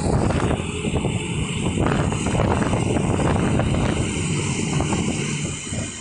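Self-loading mobile concrete mixer's diesel engine running loud and steady as the machine drives slowly forward, dipping briefly near the end.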